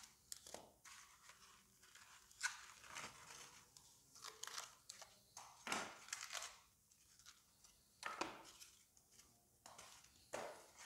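Reformed gym chalk blocks being broken and crushed by hand: crunchy, crumbling cracking, with several sharper cracks a few seconds apart.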